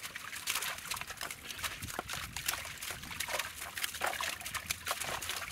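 Shallow water splashing and trickling as hands scoop prawns and small fish from a drawn net, with many quick, irregular splashes and drips overlapping.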